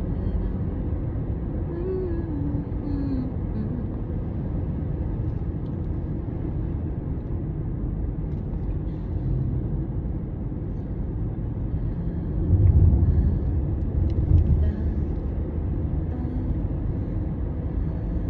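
Steady low outdoor rumble, swelling louder for a couple of seconds about twelve seconds in.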